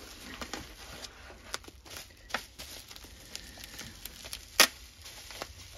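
Plastic bubble wrap crinkling and rustling as it is handled and unwrapped, with scattered sharp crackles and one loud snap a little past four seconds in.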